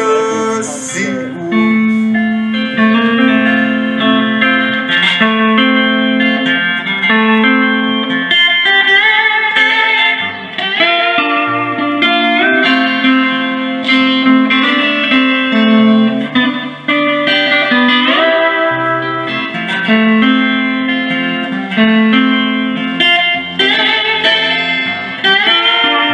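Live band playing an instrumental break: a lead guitar plays melody lines with sliding notes over a steady bass line.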